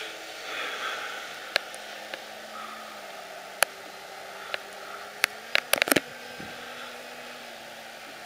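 Electric RC Yak 54's motor and propeller running, a faint steady low tone under a hiss of noise. Sharp clicks cut through it: single ones from about a second and a half in, then a quick cluster near six seconds in.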